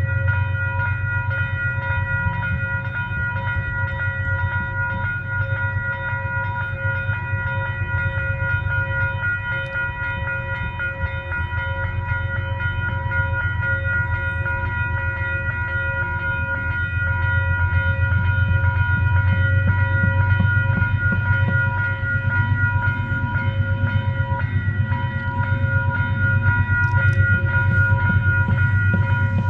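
Diesel train locomotive running steadily, a low engine rumble under a constant high whine, growing louder a little past halfway.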